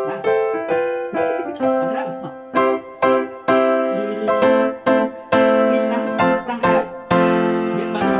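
Background piano music: a steady run of struck notes and chords, each one fading before the next.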